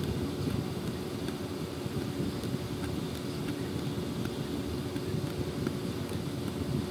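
Steady low machinery rumble with a constant hum, unchanging throughout, with a few faint small ticks scattered through it as a pin pierces the plastic film over a speaker grille.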